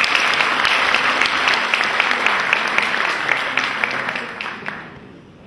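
An audience applauding, dying away about five seconds in.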